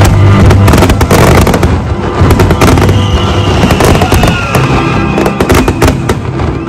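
Fireworks display: aerial shells bursting in a rapid, irregular run of bangs and crackles, with music playing underneath.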